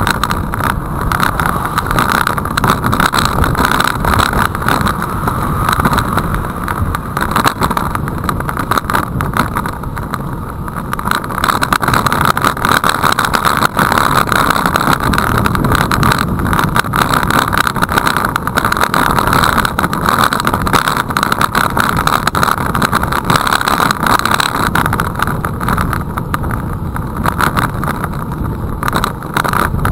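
Steady rush of wind on the microphone of a camera mounted on a moving road bike, with the hiss and rumble of tyres on a wet road.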